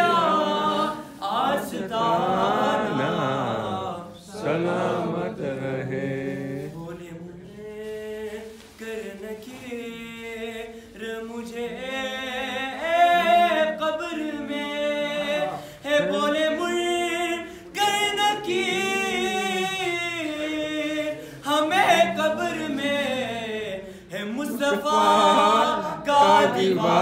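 Unaccompanied male voice singing Urdu devotional verse in long, drawn-out notes that waver and glide in pitch, phrase after phrase with short breaths between.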